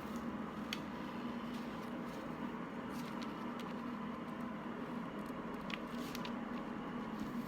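A steady low hum of room background with a few faint small clicks and taps of hands handling food pieces.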